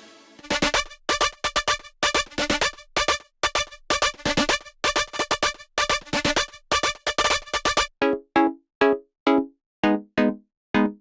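Electronic synth bass sample playing a fast rhythmic pattern of short, bright stabs, switching about eight seconds in to a sparser pattern of short plucked notes that die away quickly.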